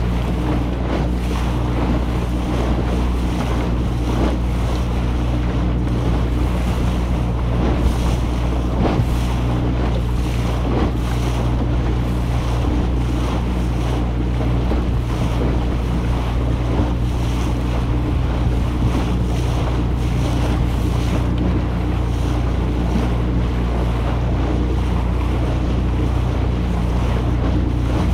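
Varnished wooden motorboat under way at steady speed. Its engine gives a steady low hum beneath wind buffeting the microphone and water rushing along the hull.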